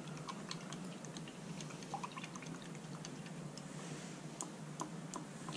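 A paintbrush dabbing and mixing paint in a metal palette box: faint, irregular small wet clicks and taps, over a steady low hum.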